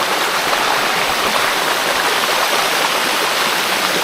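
Waterfall water rushing and splashing over rock: a loud, steady wash of noise.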